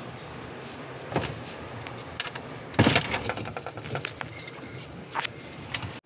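Hand-work noise on a washing machine's spin motor: scattered clicks and knocks of tools and parts being handled, with a short clatter about three seconds in as the loudest sound.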